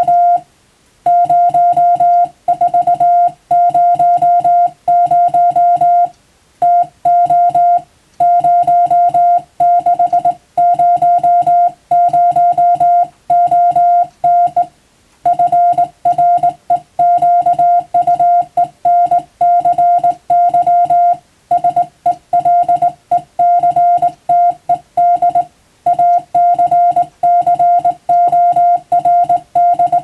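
Morse code sidetone beeps keyed by hand on a telegraph key: a single steady mid-pitched tone switched on and off in dots and dashes, with short gaps between words and a longer pause about halfway. It spells out English plain-language telegram text, the kind of sending practised for the radiotelegraph operator's exam.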